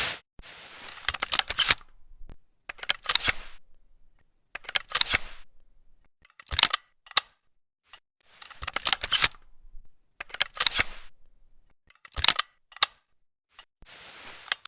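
Mechanical clicks and clacks of a Browning over-and-under 12-gauge shotgun's action being handled, with no shot fired. They come in about eight short groups of a few sharp clicks each, with brief pauses between.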